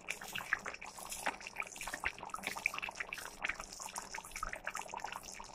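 Thick potato-and-pea curry simmering in a metal kadai over a gas flame, with faint, irregular bubbling and popping.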